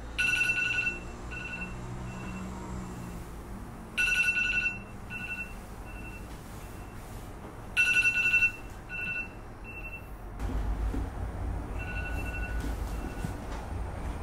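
Phone alarm ringing to wake a sleeper: a bright two-tone beep sounds three times about four seconds apart, each trailed by shorter, fading echoes, with a softer round near the end.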